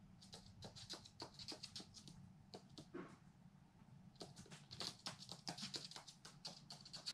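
A magpie tapping on a hard floor as it moves about: light, quick clicks, several a second, in two runs with a short lull between.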